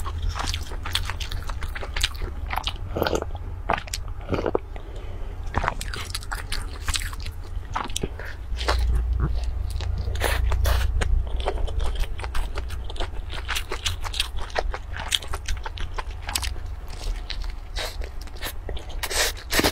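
Close-miked biting and chewing of crunchy rice-paper-wrapped rolls: many irregular crisp crackles and crunches over a low hum.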